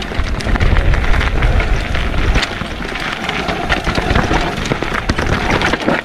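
Mountain bike rolling down a rough, stony trail: the tyres crackle and knock over loose stones and the bike rattles. Wind buffets the microphone, heaviest in the first two seconds or so.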